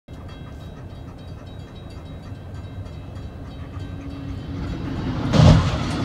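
Railroad crossing bell ringing as a Brightline passenger train approaches, the train noise building, then a loud crash about five and a half seconds in as the train strikes a car at the crossing.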